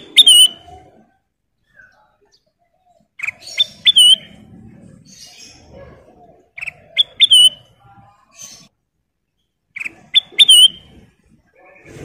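Kutilang emas bulbul calling: four short chirping phrases, each a few quick notes, about three seconds apart.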